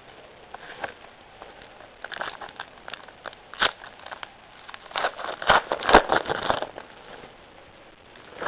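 Crinkling and crackling of a foil trading-card pack wrapper being handled and torn open, in short bursts of rustle and clicks that are busiest and loudest about five to six and a half seconds in.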